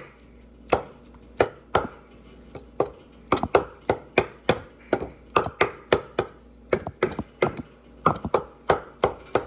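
Kitchen knife chopping hard-boiled eggs on a wooden cutting board, the blade knocking sharply on the board. A few spaced strokes come first, then quicker runs of three or four knocks a second.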